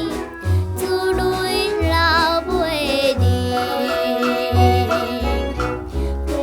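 Music: an early-1960s Taiwanese Hokkien pop record playing, a band accompanying a female singer.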